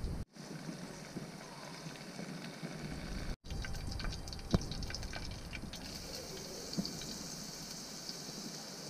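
Hot oil sizzling and crackling in a clay pot over a wood fire, with scattered sharp pops about halfway through. A steadier frying hiss sets in about two-thirds of the way through as food goes into the oil.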